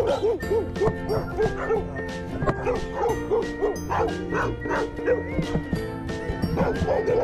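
Dogs barking over and over, about two or three barks a second, at a person they have surrounded, over light upbeat background music.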